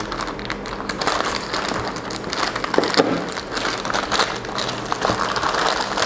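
Plastic courier mailer bag crinkling and rustling as hands pull it open, with many small crackles and one sharper snap about three seconds in.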